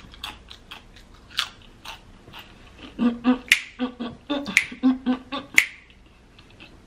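Crisp clicks of a tortilla chip being chewed. From about halfway through, a woman hums a short rhythmic tune with her mouth closed and snaps her fingers three times, about a second apart.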